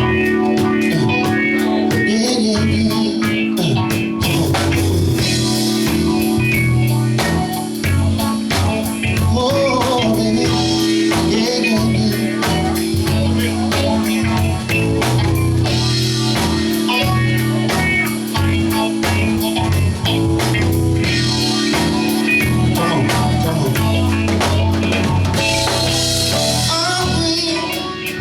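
Live soul band playing a smooth, steady groove on drum kit and guitar, with held chords underneath and no break.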